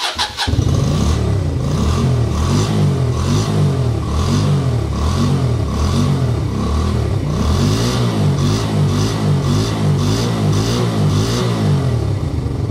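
Suzuki VL125 Intruder's 125cc V-twin engine firing up and then being revved up and down in repeated quick throttle blips, running to circulate freshly changed oil.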